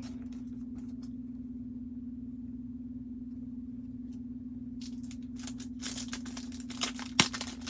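A steady low electrical hum, joined about five seconds in by a run of crinkling and clicking as a foil trading card pack is torn open and the cards are handled.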